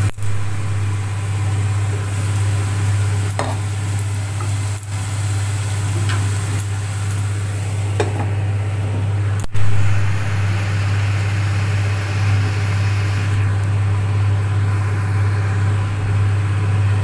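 Chopped onions sizzling as they fry in oil in a covered pot, over a steady low hum. The sound breaks off for an instant about halfway through.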